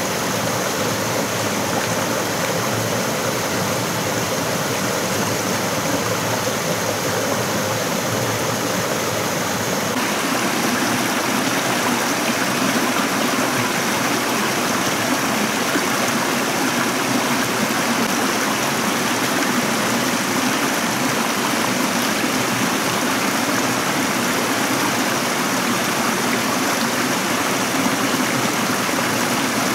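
Stream water flowing steadily over rocks, an even, unbroken rush of water whose tone shifts slightly about ten seconds in.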